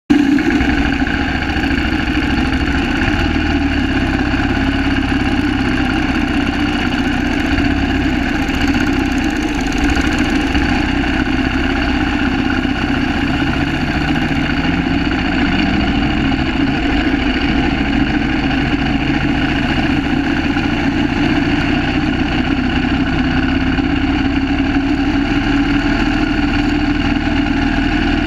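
Single-cylinder engine of a 1930 Terrot 350 HST motorcycle running steadily at low revs, with other vintage motorcycle engines running around it; one of them rises in pitch briefly about halfway through.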